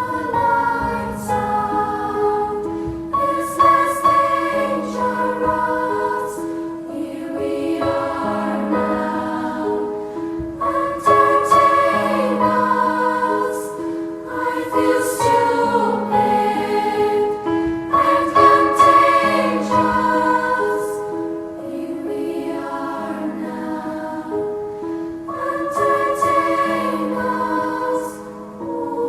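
Background music of choral singing: voices holding long chords over a repeating low note.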